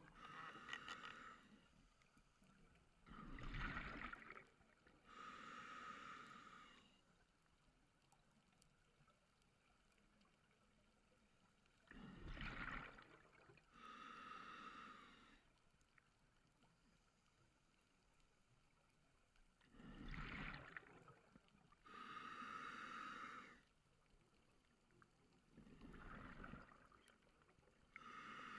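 Scuba diver breathing through a regulator underwater, faint: four breaths about eight seconds apart, each a short rush of air followed by a longer spell of bubbles.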